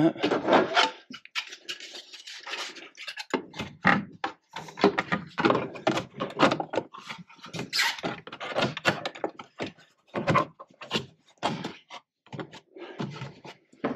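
Ford Transit's plastic windshield-camera trim cover being pressed and snapped back into place by hand: a run of irregular plastic clicks and knocks with rubbing between them.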